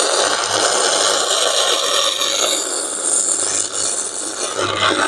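Stick (MMA) welding arc from an Xcort MMA-305H DC inverter welder burning a 12-gauge electrode at a very high current setting. The arc gives a steady, dense crackling sizzle.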